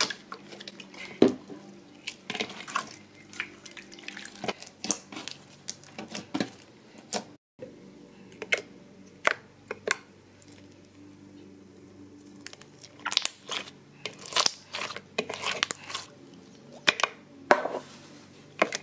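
Clear glitter slime being squished and stretched in a plastic bowl, giving irregular wet clicks and pops. There is a brief break about seven and a half seconds in.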